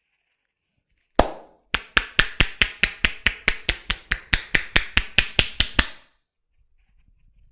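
Wooden tok sen hammer knocking on a wooden wedge during a tok sen massage: one knock, then a quick, even run of about five knocks a second for some four seconds, stopping abruptly.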